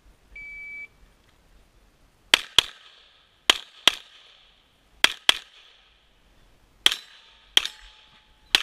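A shot timer's start beep, one steady high tone lasting about half a second, then pistol shots fired in quick pairs, about nine in all, each with a short echo.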